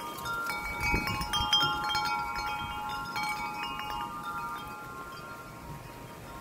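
Wind chime stirred by the wind: its tubes are struck again and again over the first three seconds, and their clear, overlapping tones ring on and slowly fade, over a low rush of wind.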